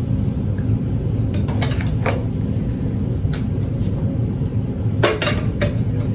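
A few light clinks and taps of hard objects being handled and set down on a hard surface, the strongest cluster about five seconds in, over a steady low hum.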